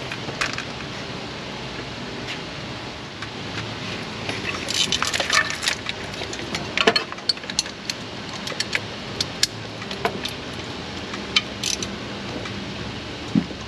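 Hand tools clicking and clinking against metal as a stuck engine bolt is worked at. The clicks are irregular and sparse at first, then frequent from about four seconds in, over a steady background hum.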